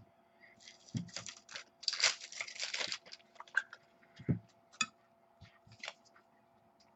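Sports cards and their plastic packaging being handled: a burst of rustling about two seconds in, scattered clicks and crinkles, and two soft thumps on the table.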